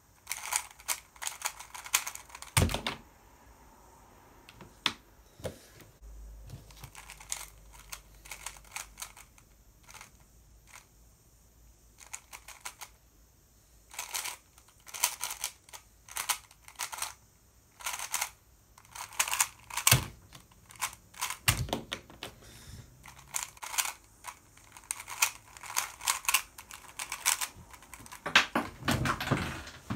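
A 3x3 speedcube being turned by hand: bursts of rapid plastic clicking and clacking as its layers are turned, broken by short pauses, with a few louder knocks.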